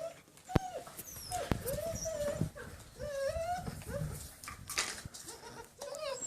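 Six-week-old German Shepherd puppies whining, a string of short high-pitched calls that rise and fall one after another, with a few sharp clicks or knocks among them.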